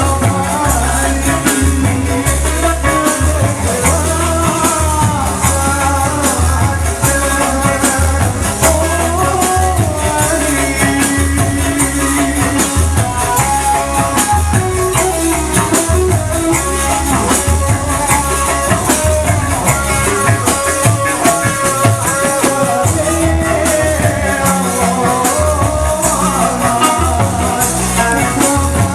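Loud live band music with a steady pounding drum beat, shaking rattle-like percussion and a wavering melody line over it, played through a large sound system.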